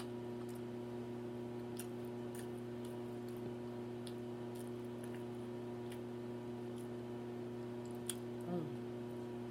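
Soft mouth clicks and smacks of someone chewing food, a few scattered clicks over a steady electrical hum, with a brief murmured voice sound near the end.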